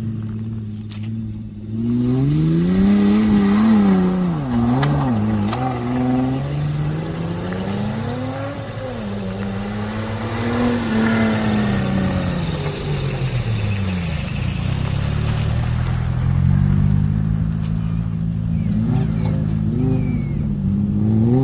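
A 4×4 off-road trial vehicle's engine revving hard and repeatedly, its pitch climbing and dropping again and again as the vehicle works through a dirt section.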